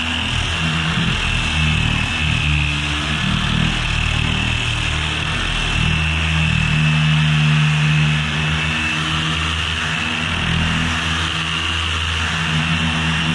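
Handheld orbital sander running steadily against a fiberglass boat hull: a low motor hum under a steady high whine and the hiss of the pad on the surface, the hum swelling a little partway through as the pressure changes.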